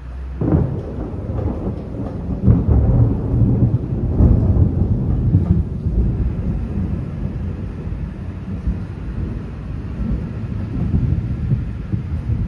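Close thunder: a sudden crack about half a second in, then a long, heavy rumble that swells strongest a few seconds in and keeps rolling.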